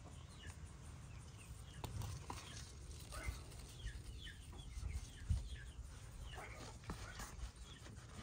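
Faint bird calls: short falling chirps repeated throughout, over a low rumble, with a few soft knocks, the sharpest about five seconds in.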